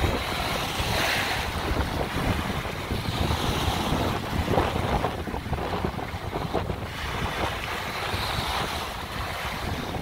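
Wind buffeting the microphone over small waves washing onto a sandy shore, the wash swelling about a second in and again near the end.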